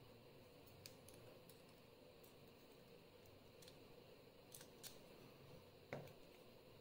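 Faint, scattered small metallic clicks as springs are put back one by one into the pin chambers of a Lockwood euro cylinder, with one louder tap near the end.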